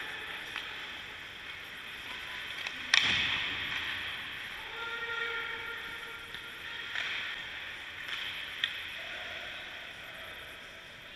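Hockey skates scraping and carving on rink ice, with one sharp, loud crack of a puck being struck about three seconds in and a lighter click later on.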